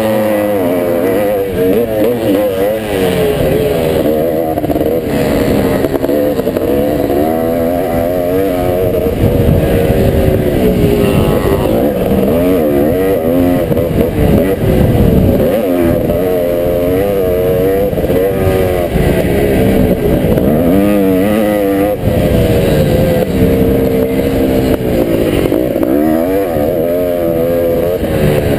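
Motocross bike engine under hard riding, its pitch rising and falling again and again as the throttle is worked and gears change through corners and straights, with wind rumble on the helmet-mounted camera.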